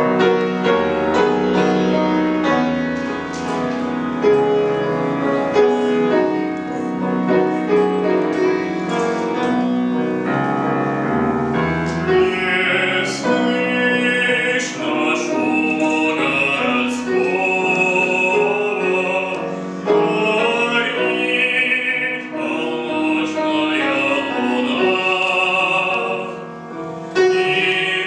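Grand piano playing a slow introduction alone. About twelve seconds in, a male classical singer enters with a full operatic voice and vibrato, and the piano accompanies him.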